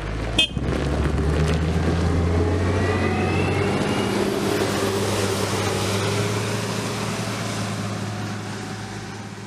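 A heavy engine running steadily, with a sharp click about half a second in.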